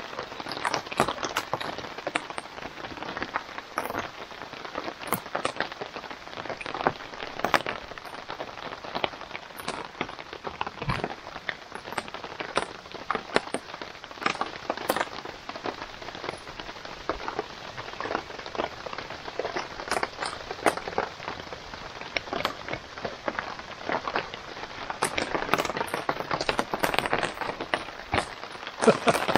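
Steady rain falling on tarps overhead, with many separate drops striking sharply over a constant hiss.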